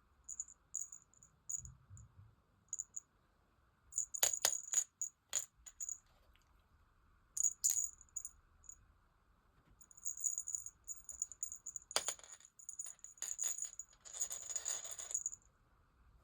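A small metal bell jingling in short, irregular shakes, mixed with several sharp clicks or taps. The loudest taps come about four and twelve seconds in, and a longer rattling jingle follows near the end.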